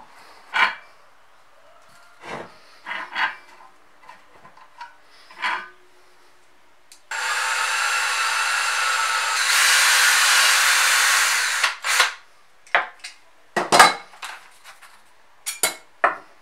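Cordless drill spinning a rusty threaded rod chucked in its jaws for about four and a half seconds, starting about seven seconds in and getting louder partway through. Before and after it, sharp metal clinks and knocks of the rod and its nuts being handled on the bench.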